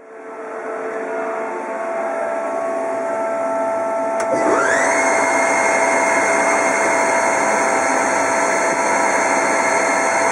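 Cincinnati Hawk TC150 CNC lathe running with a steady mechanical hum. About four seconds in there is a click, and the spindle spins up with a quickly rising whine that then holds at a steady high pitch. Right at the end the whine begins to fall as the spindle starts to slow.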